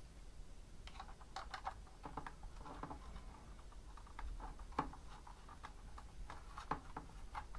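Faint, scattered clicks and taps from a small plastic keyboard controller, the IK Multimedia iRig Keys, being handled. Fingers knock on its keys and casing while a cable is fitted into the port on its back.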